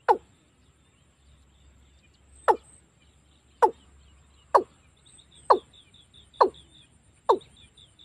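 Watercock calling: seven short, deep notes, each sliding quickly downward, coming faster and faster, from about two and a half seconds apart to under a second apart.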